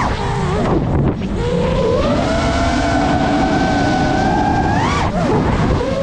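FPV quadcopter's brushless motors and propellers whining, the pitch changing with the throttle: it drops sharply just after the start, climbs again about two seconds in and holds steady, then rises and falls once more near the end. A rushing wind noise on the microphone runs underneath.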